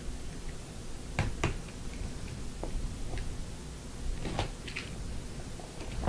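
Small plastic box cutter slitting the seal on a cardboard trading-card box, with sharp crackles and clicks in two pairs, about a second in and again after four seconds, over a low steady hum.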